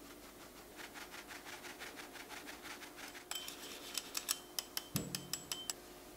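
Fine-mesh metal sieve shaken and tapped to sift flour and cocoa powder into a glass bowl: soft quick ticks, about six a second, then from about three seconds in sharper ringing taps of the metal sieve, about a dozen. There is a dull knock about five seconds in.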